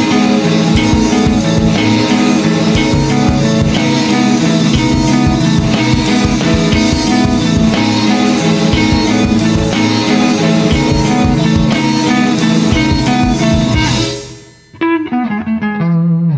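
Background music: a full band with electric guitar, bass and drums at a steady beat, fading out near the end into a quieter, sparser plucked guitar passage.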